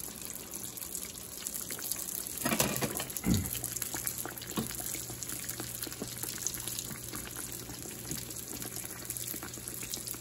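Calzones deep-frying in hot canola oil in a stainless steel pan: a steady crackling sizzle. About two and a half seconds in the sizzle surges louder and ends in a thump.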